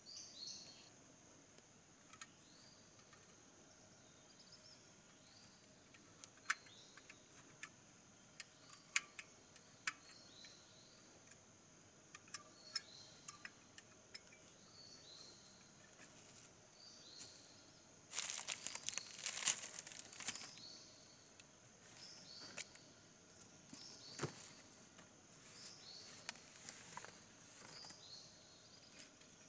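Forest background of a steady high insect drone with short falling chirps every second or two. Over it come light clicks of small objects being handled, and about two-thirds of the way through, a couple of seconds of louder crinkling and rustling, like plastic packaging being handled.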